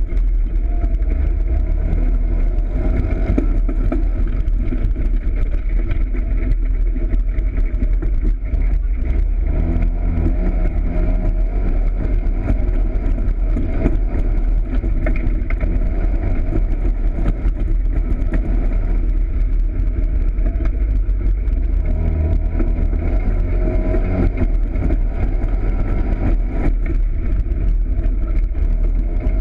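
Polaris RZR side-by-side's engine running under way, heard from a camera mounted on the vehicle, with a heavy low rumble. The engine note rises and falls a few times as it speeds up and eases off, most clearly around a third of the way in and again past two thirds.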